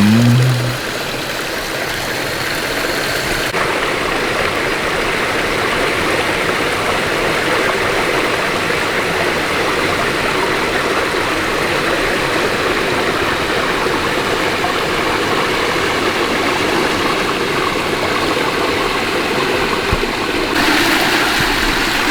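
Creek water rushing and splashing over small falls, a steady, even rush with no letup.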